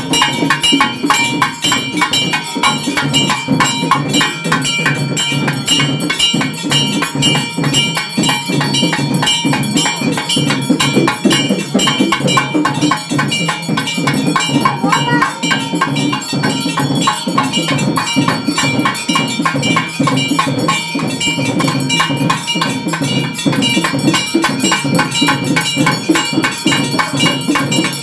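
Rapid, unbroken ringing of metal temple bells over drumming, loud and steady throughout.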